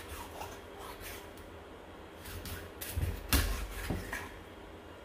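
A few scattered knocks and clunks of kitchen work at a chopping board as the cut pieces of milkfish are handled, the loudest about three and a half seconds in, over a faint steady hum.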